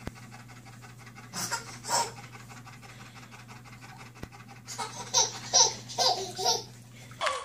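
Chocolate Labrador panting, with a baby laughing in a run of short giggles in the second half.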